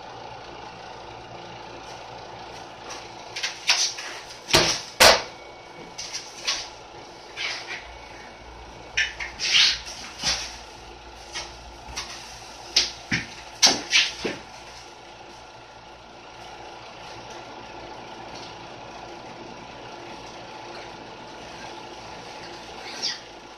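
A run of sharp knocks, clatters and scrapes from rigid foam insulation boards and hand tools being handled against a stud wall, bunched in the first half, over a steady low hum.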